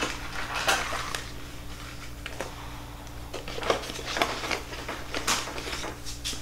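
Light clicks and knocks of small kitchen items being picked up, moved and set down on a shelf, scattered irregularly, over a steady low hum.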